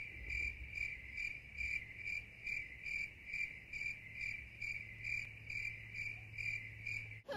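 Cricket chirping steadily, about two to three even chirps a second, over a faint low hum.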